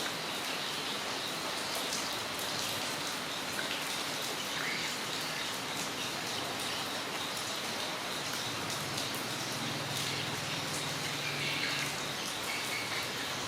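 Rain falling steadily, with many individual drops ticking sharply.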